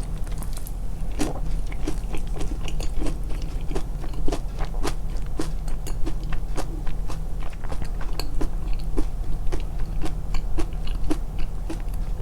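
Close-miked chewing and biting of crunchy food, with many quick wet mouth clicks and crunches over a steady low hum.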